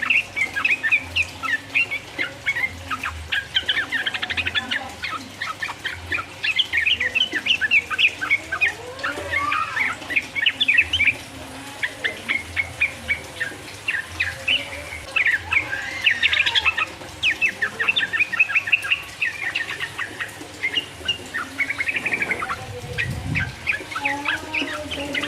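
Yellow-vented bulbul (trucukan) singing a rapid, chattering song of dense, quick chirps without a break, the long fast "ropel" song.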